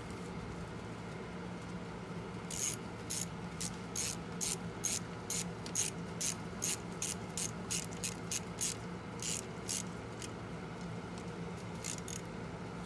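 Ratchet wrench clicking in a steady run of short strokes, about three clicks a second, starting a couple of seconds in and stopping about ten seconds in, over a steady low hum.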